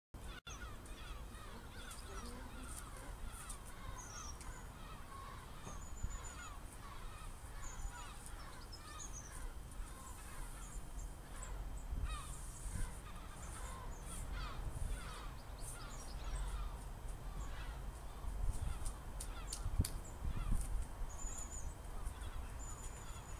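Many birds calling at once: dense short falling chirps with a few high whistled notes, over a low wind rumble on the microphone. A few light knocks and scrapes come in the second half.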